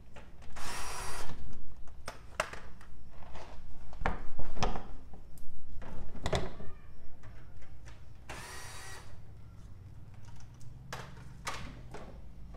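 Cordless drill-driver running in two short whining bursts, about half a second in and again about eight seconds in, backing out the fasteners of a car's plastic engine undertray. Between and after the bursts come knocks and plastic rattles as the undertray is worked loose.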